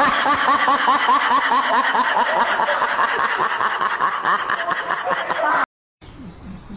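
Rapid, repeated high-pitched giggling laughter, a quick string of rising-and-falling 'hee' sounds, that cuts off abruptly about five and a half seconds in.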